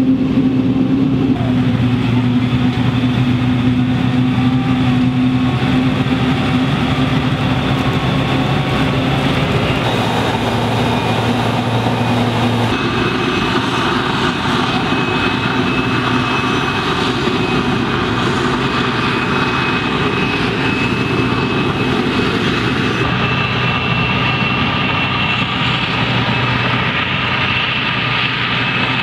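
Maize harvesting machinery running steadily: a Krone forage harvester chopping corn, with a John Deere tractor pulling the silage trailer alongside. A steady engine hum runs throughout, a high steady whine joins in about halfway through, and the sound shifts abruptly a few times.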